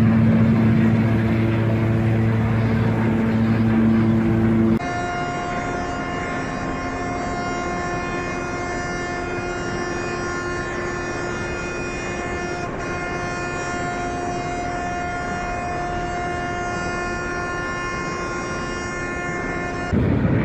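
The MSC Opera cruise ship's horn blaring one long, deep, steady warning blast as the ship rams a moored river cruise boat. About five seconds in, the sound cuts to a higher, steady tone that holds almost to the end, then to rough noise.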